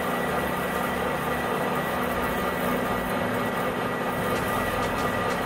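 Metal lathe running at about 250 RPM while a freshly sharpened twist drill bores into aluminium: a steady machine sound with a thin high tone. The drill is cutting evenly, with chips coming off both flutes, the sign that both cutting edges are sharpened alike.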